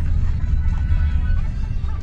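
Steady low rumble of a car in motion, heard from inside the cabin, with faint music playing over it.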